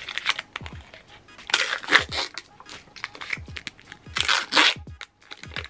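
Small plastic blind-bag wrappers from a Toy Mini Brands capsule crinkling and tearing open in the hands. Two louder rips come about a second and a half in and about four seconds in.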